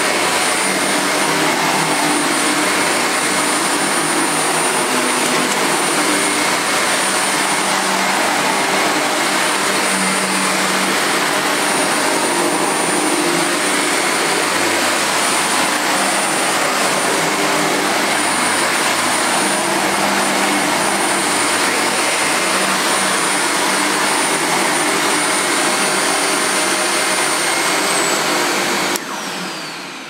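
Sebo Felix upright vacuum cleaner running steadily on carpet, a broad rush of suction with a thin high whine over it. Near the end it is switched off, and the whine falls away as the motor runs down.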